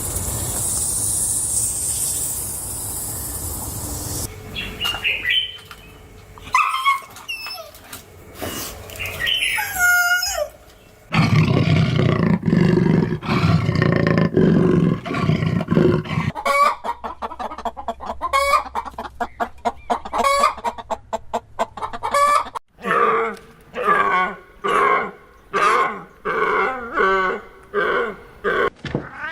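Chickens: short gliding calls like a rooster's crow, followed over the second half by hens clucking in many quick repeated calls. A hissing noise at the start and a loud low-pitched stretch in the middle come from other clips.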